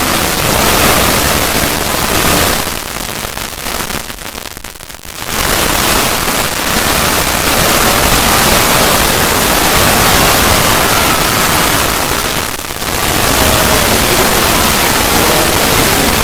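Loud, steady static-like rushing noise, a 'void' sound effect. It thins out and fades for about two seconds a few seconds in, then comes back at full level, with another brief dip near the end.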